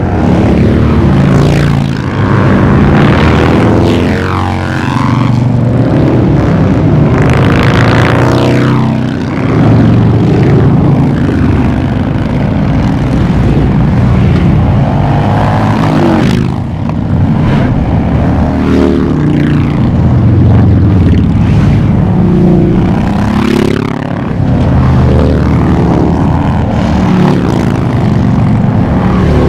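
A long stream of motorcycles riding past one after another, Harley-Davidson V-twin cruisers and touring bikes among them, their engines rumbling loudly. The sound swells and falls in pitch as each group passes, with a few brief dips between groups.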